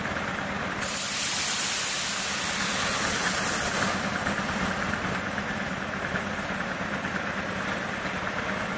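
An electric multiple-unit train standing in the station, its onboard equipment humming steadily. About a second in, a loud hiss of compressed air starts abruptly and dies away after about four seconds.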